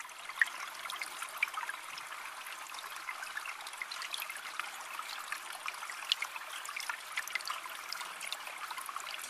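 Aquarium water trickling and bubbling: a steady hiss dotted with many small pops and drips.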